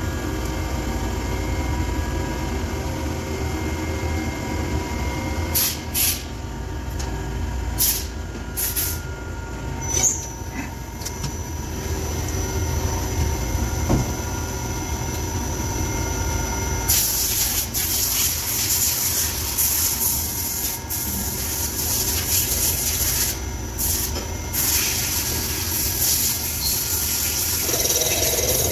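CNC lathe running, a steady machine hum with several held tones and occasional sharp clicks. About halfway through, a hiss joins the running noise and continues to the end.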